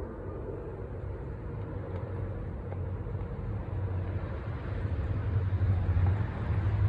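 A low, steady engine drone from a passing vehicle that grows louder toward the end.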